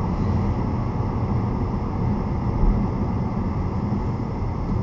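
Steady low rumble of a car driving at about 70–85 km/h: tyre and engine noise heard from inside the cabin.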